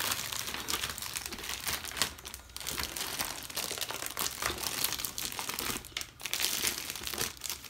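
Clear plastic film crinkling and crackling as it is peeled by hand off a wooden tray: a continuous run of small, irregular crackles.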